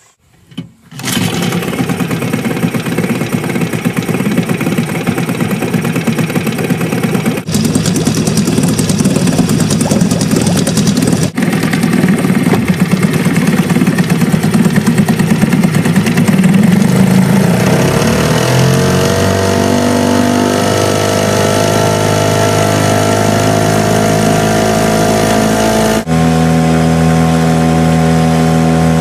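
Motorboat engine running loud and rough, coming in abruptly about a second in. In the second half its note evens out into a steady tone that rises a little in pitch and then holds.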